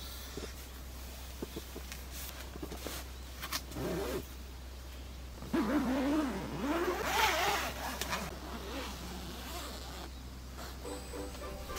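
A zipper being pulled: a short pull about four seconds in, then a longer, uneven pull whose pitch rises and falls with the speed of the slider.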